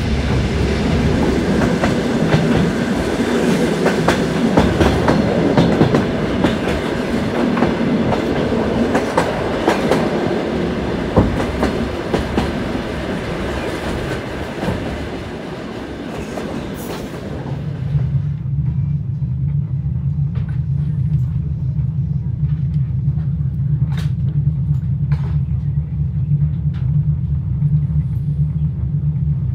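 Passenger train running on the rails, heard from inside a sleeping-car compartment: steady running noise with wheels clattering over rail joints. About seventeen seconds in it changes abruptly to a steady low hum with a few faint clicks.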